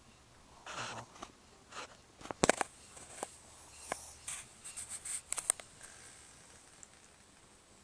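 Short scraping rustles and several sharp clicks, loudest in a quick cluster about two and a half seconds in, then scattered scratchy rustles until about six seconds in.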